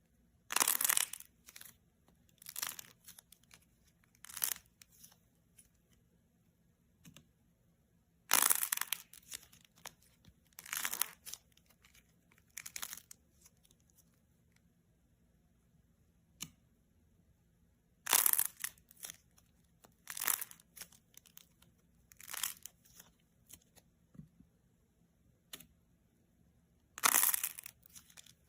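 Dried clay being pressed and cracked: a series of crunchy, crackling bursts, one every couple of seconds. The loudest come about a second in, around eight seconds in, around eighteen seconds in and near the end.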